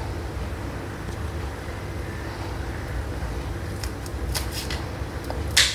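Knife chopping green chillies on a wooden cutting board: a few sharp taps in the last two seconds, the loudest just before the end, over a steady low background hum.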